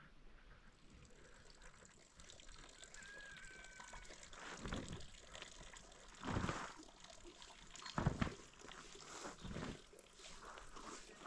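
Water pouring and splashing in several short surges.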